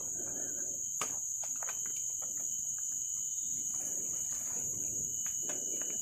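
A steady high-pitched insect drone, with a few faint clicks and rustles beneath it.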